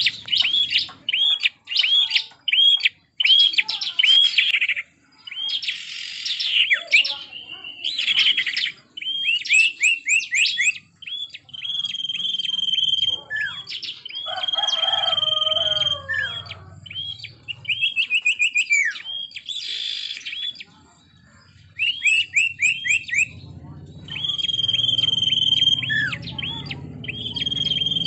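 Bar-winged prinia (ciblek) singing vigorously: rapid runs of sharp, high chirps and trills, broken several times by long, held whistled notes.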